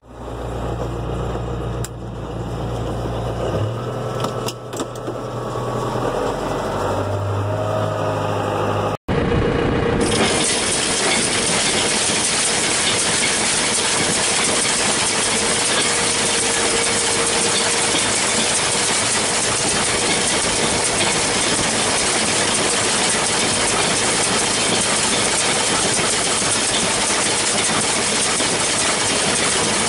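John Deere 6400 tractor's diesel engine idling steadily with a few mechanical clicks; about nine seconds in, after a cut, the tractor and New Holland 648 round baler run at work with a loud, steady wash of machine noise.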